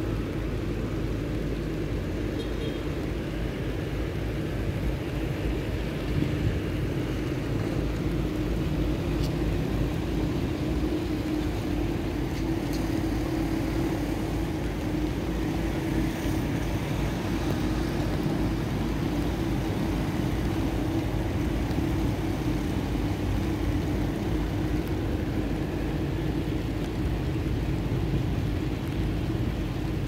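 Steady low engine rumble with a constant droning hum, unchanging throughout.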